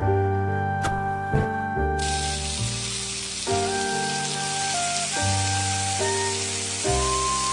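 Background music with sustained chords. About two seconds in, a steady sizzle of food frying in hot oil starts suddenly and continues under the music.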